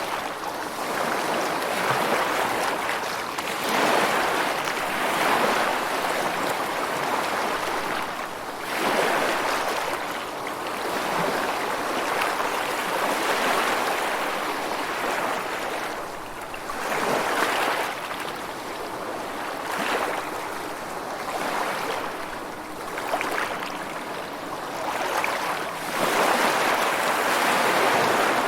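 Rushing water, a steady hiss that swells and eases every few seconds, like waves or a fast stream.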